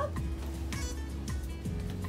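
Background music with steady held low notes and light ticking percussion.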